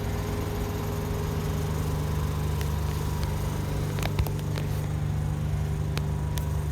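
Air conditioner running with a steady, noisy hum of several held tones, with a few faint clicks about four seconds in.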